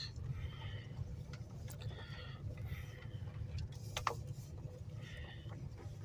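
Low steady rumble of a vehicle driving, heard from inside, with a sharp click about four seconds in.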